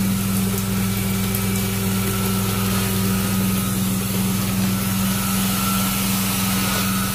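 Carpet extraction wand drawing water out of the carpet, a steady rushing suction over the constant low hum of the cleaning machine.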